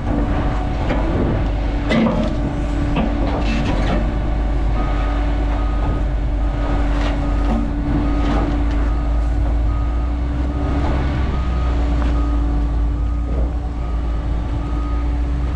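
A heavy diesel engine runs steadily. Knocks and clatter come in the first few seconds, and from about five seconds in a vehicle's reversing alarm beeps about once a second.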